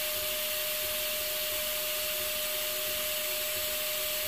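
FLSun S1 delta 3D printer running a high-speed print: a steady fan hiss with a constant tone through it.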